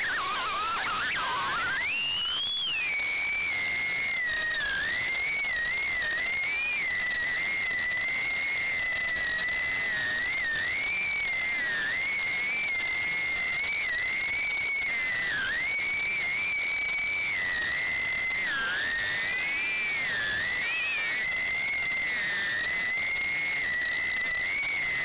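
The high whine of a five-inch FPV quadcopter's Emax RS2205 2600KV brushless motors and tri-blade props in flight, heard through the onboard action camera. The pitch wavers constantly with the throttle. It drops sharply right at the start, then swoops up steeply about two seconds in.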